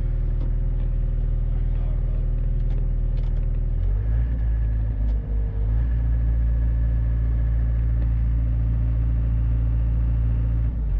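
Compact excavator's diesel engine running steadily, heard from inside the cab. About four seconds in, its low hum deepens and grows heavier, holds for several seconds, and changes back near the end.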